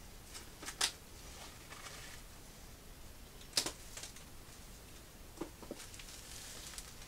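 Off-camera handling noise on a desk: a few sharp clicks and taps, the loudest about a second in and again midway, with a soft plastic rustle near the end as the shrink-wrapped box is handled.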